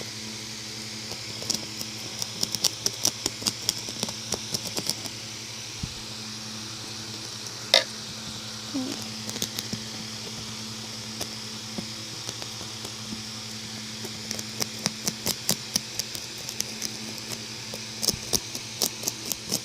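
A toothpick jabbed and scraped into damp carpet pile to loosen slime: runs of quick scratchy clicks, with one sharper click partway through, over a steady low hum.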